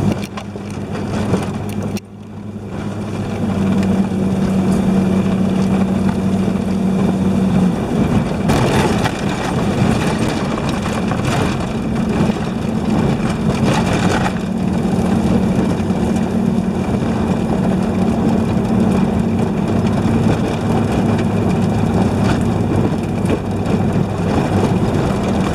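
Off-road vehicle engine running loud and close at a fairly steady speed, with a rough, gritty noise over it and a short drop in level about two seconds in.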